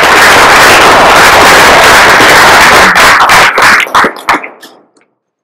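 Audience applauding, loud and close to the microphone, thinning out into a few last separate claps that die away about four to five seconds in.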